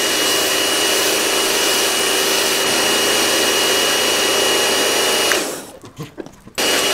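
Pressure washer running steadily, a whine over a hiss of spray. It cuts out near the end and starts again just before the end.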